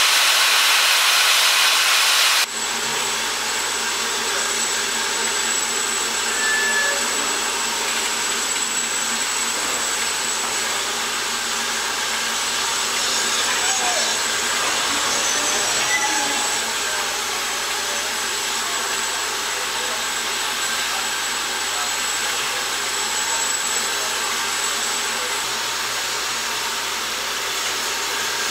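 Steam hissing steadily from a standing BR Standard Class 4MT 4-6-0 steam locomotive; a louder, brighter hiss at the start stops abruptly about two and a half seconds in.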